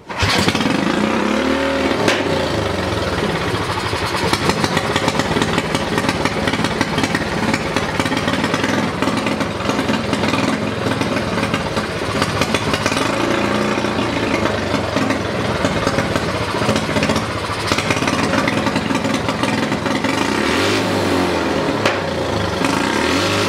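Predator 212 single-cylinder engine with a Mikuni carburetor, set up to run on alcohol, running steadily and revved up and back down several times on the throttle.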